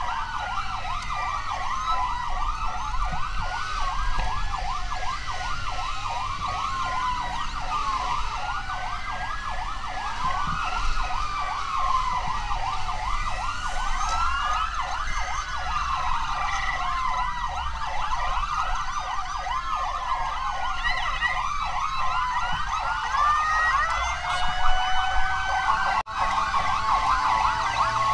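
Several emergency vehicle sirens wailing at once, their overlapping tones rising and falling about every two seconds. The sound cuts out briefly near the end.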